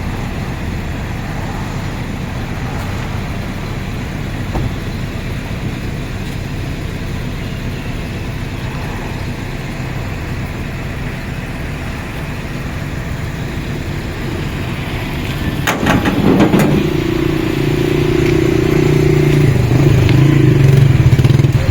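A motor vehicle's engine runs steadily at a low rumble. About fifteen seconds in there is a brief clatter of knocks, and then a louder, steady engine note takes over to the end.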